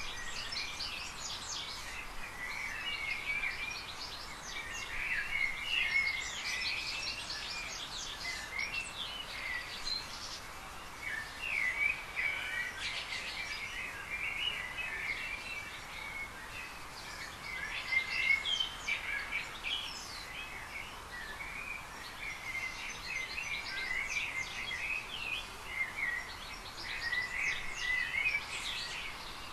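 Garden birdsong: many birds chirping and twittering without pause over a steady background hiss.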